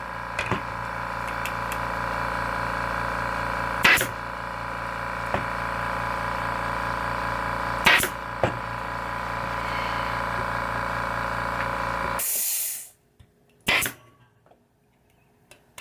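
Air compressor running with a steady hum, then shutting off about twelve seconds in. Three sharp snaps of a pneumatic staple gun, about four seconds apart, with the last one after the compressor has stopped.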